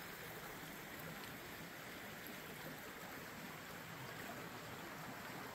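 Faint, steady flow of a forest creek.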